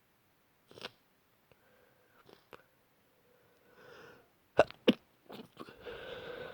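Person with a blocked-up head cold sneezing: short breaths and a quiet strained build-up, then two sharp, loud sneezes in quick succession about four and a half seconds in, followed by a drawn-out voiced breath.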